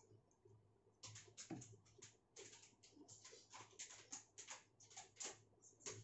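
Faint, irregular light clicks and rustles of paper pattern and masking tape being pressed and smoothed by hand onto a shoe last, starting about a second in.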